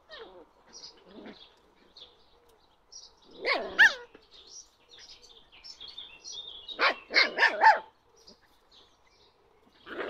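Puppies barking at play: one bark about a third of the way in, then a quick run of four barks about two-thirds in.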